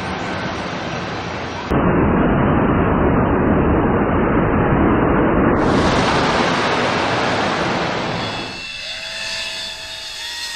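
Jet blast from an airliner's engines at takeoff thrust sweeping over the beach: a loud, steady roar that comes on suddenly about two seconds in and dies down near the end.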